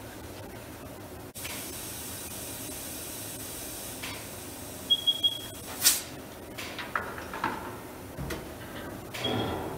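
Road-force wheel balancer being loaded. There is a steady hiss of air for a few seconds, then a quick run of high electronic beeps, a sharp clack, and clattering as the tire and wheel are handled on the shaft. One more beep comes near the end.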